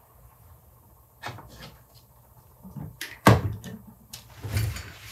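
A series of light knocks and clicks of hard objects being handled and set down on a hard surface, the loudest knock a little past halfway.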